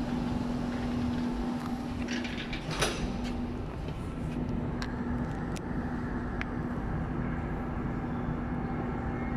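Inside a KHI C151 MRT train car: steady electrical hum over an even rumble, with a brief sharp noise about three seconds in and a few light clicks later.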